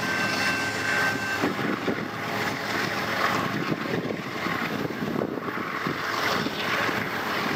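Diesel freight locomotives running, with the rumble of wheels on rail, as one locomotive pulls away and another approaches. A thin high steady tone fades out about a second and a half in.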